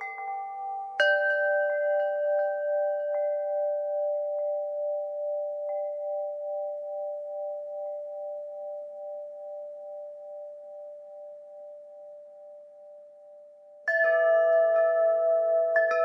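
Wind chimes struck in a cluster about a second in, several tones ringing together and slowly fading with a gentle waver for over ten seconds. A fresh burst of strikes comes near the end.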